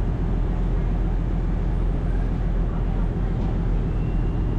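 Steady low rumble of a large engine running.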